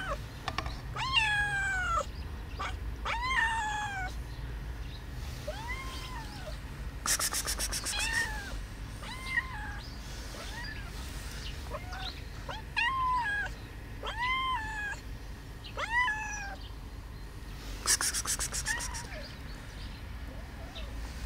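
Black-and-white cat meowing repeatedly for food: about a dozen meows that rise then fall, the first two longer and drawn out. Twice, about seven seconds in and again about eighteen seconds in, comes a short rapid buzzing rattle.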